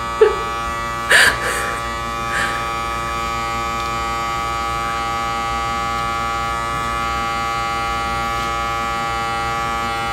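Steady electrical buzz throughout, with a few brief louder sounds in the first three seconds, the strongest about a second in.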